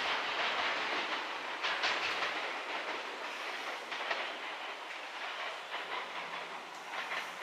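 Izukyu 2100 series Resort 21 electric train moving slowly, wheels clicking over rail joints a few times, the running noise gradually fading.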